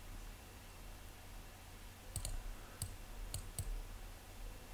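A handful of light, short clicks from a computer mouse over a low, steady hum of room noise.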